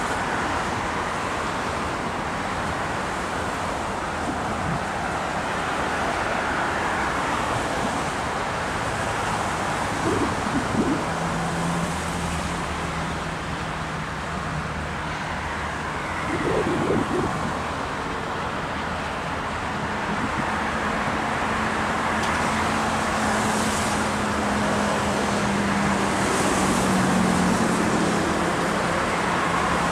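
Freight train of coal hopper cars rolling past with a steady rumble, mixed with city traffic noise. A low hum comes in for a few seconds near the middle and again over the last third.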